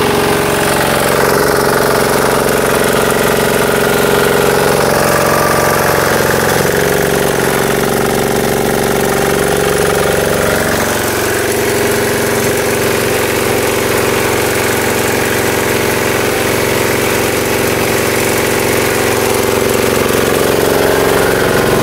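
Small diesel engine of a high-pressure washer running steadily. Its note changes for a few seconds near the middle, then settles again.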